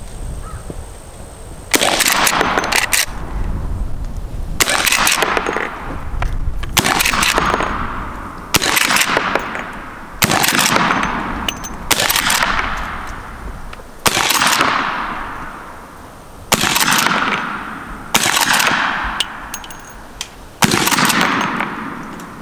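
About ten rifle shots, one every two seconds or so, from a Henry Big Boy lever-action firing .38 Special rounds loaded with homemade black powder. Each shot leaves a long echoing decay, and short clicks of the lever being cycled fall between some of them.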